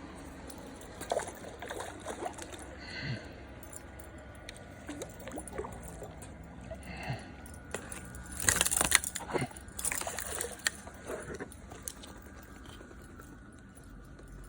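Water sloshing and splashing as a hooked bass is played in, with a burst of louder splashes about nine to ten seconds in.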